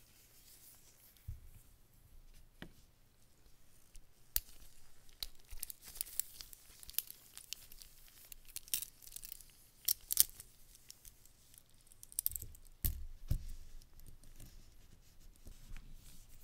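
Gloved hands handling wristwatches, one on a steel link bracelet: rustling with a run of small sharp clicks and clinks, thickest from about four to ten seconds in, and a couple of duller knocks near thirteen seconds as the watches are set down on the mat.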